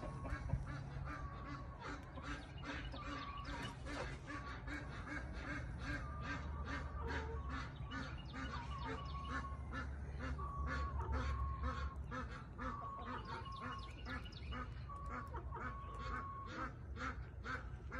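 Fowl calling in a long run of short, quick, evenly repeated calls, several a second.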